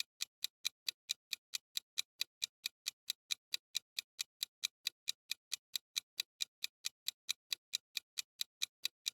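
Quiz countdown timer sound effect: a fast, even clock-like ticking, about four or five ticks a second, marking the time left to answer.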